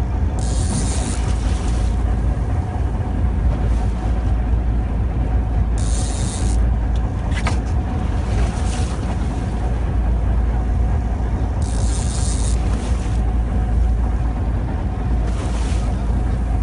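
Boat engine running steadily, a deep continuous rumble, with four short bursts of hiss a few seconds apart.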